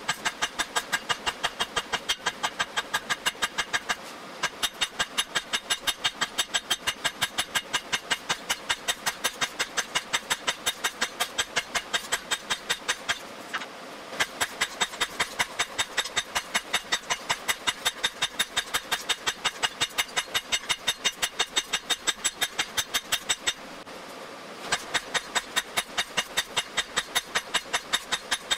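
Hand hammer striking red-hot steel on an anvil in a steady rhythm, about three blows a second, each blow ringing off the anvil, as the steel is flattened into a petal. The hammering breaks off briefly three times.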